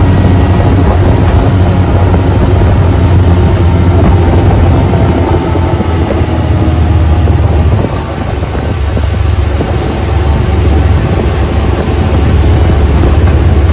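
Engine of an open side-by-side off-road vehicle running steadily as it drives, a loud low drone mixed with ride noise. It eases off briefly about eight seconds in, then picks up again.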